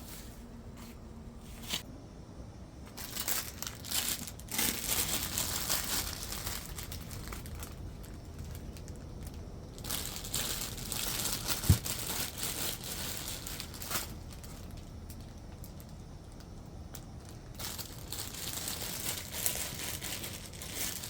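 Plastic food packaging crinkling and rustling in several spells as it is handled, with one sharp knock a little past halfway.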